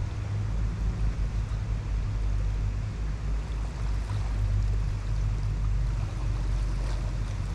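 Wind buffeting the microphone: a steady low rumble that keeps shifting in level.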